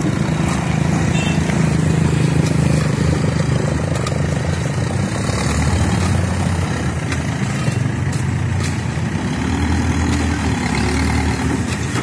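Backhoe loader's diesel engine running steadily amid street traffic, with a motorcycle passing close near the start.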